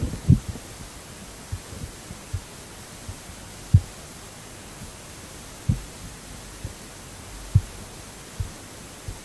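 Steady background hiss with about ten dull, low thumps at uneven intervals; the strongest come about four, six and seven and a half seconds in.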